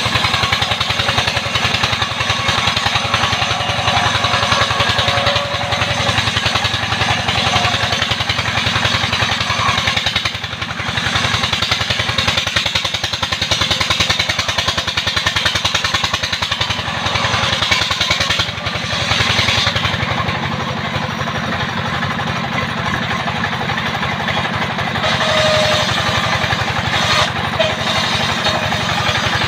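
Engine-driven circular sawmill running steadily, its blade ripping a log lengthwise into planks, over the rapid, even pulsing of the engine.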